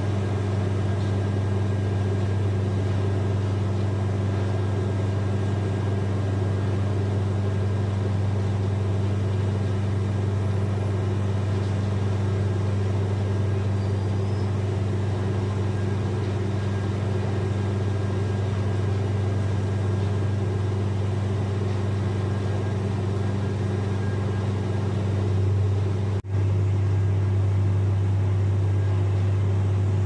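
Heavy machinery running at a cement loading berth, giving a steady, loud, low drone with a faint higher whine above it. The drone cuts out for a split second about 26 seconds in.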